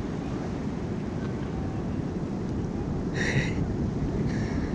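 Steady wind rumble on the microphone out over the sea. Two short high-pitched cries cut through it about three seconds in and again a second later, the first louder.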